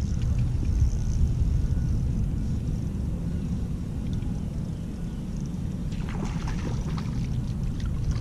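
A steady low rumble on a kayak-mounted action camera as an angler casts and reels from the boat, with faint trickling water. About six seconds in, a short patch of light clicks and rustle comes from handling the rod and reel.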